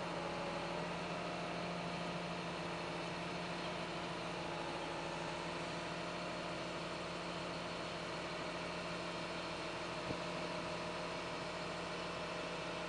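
Engine of a heavy Hyster forklift running steadily at low speed, a steady low hum. A single light knock about ten seconds in.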